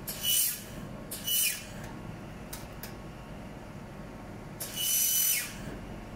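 A 1500 W handheld fiber laser welder firing on thin carbon steel in three short bursts: each is a loud hiss with a whistling tone that falls in pitch, and the last burst is the longest. Two light clicks come between the second and third bursts.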